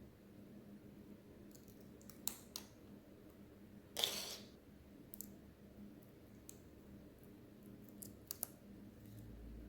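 Faint handling sounds of a phone being worked on by hand: a few small, sharp clicks and one brief scrape about four seconds in.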